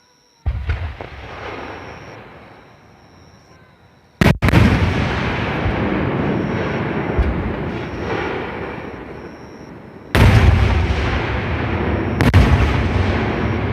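Aerial firework shells bursting at close range: a series of loud booms, one about half a second in, a double one near four seconds, and two more in the last few seconds, each trailing off in a long rumbling echo.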